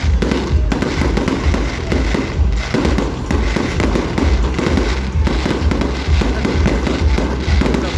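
Fireworks display in a rapid, continuous barrage of bursts and crackling, typical of a show's finale.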